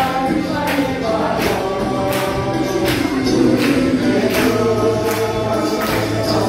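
A group singing a gospel worship song together, with a steady beat of hand claps about one every three-quarters of a second.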